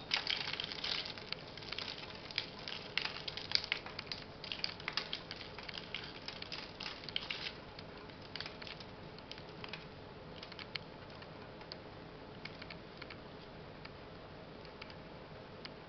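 Perlite granules crunching and clicking under the fingers as a baby African violet is worked into a small cup of perlite. The clicks come thick and fast for about the first half, then turn sparse.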